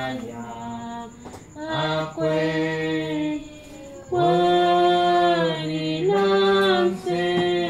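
Unaccompanied singing: a slow melody sung in long held notes, in phrases with brief breaths between them.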